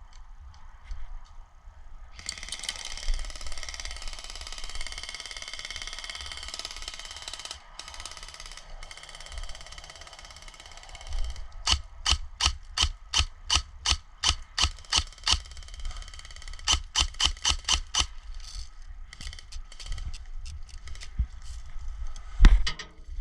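Airsoft gun fired in quick single shots, about four a second, in two strings with a short pause between them. Before them comes several seconds of steady rustling hiss, and near the end there is one loud knock.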